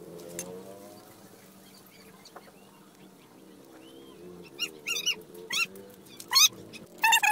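Several short, high animal cries in quick succession in the last third, over a faint low murmur.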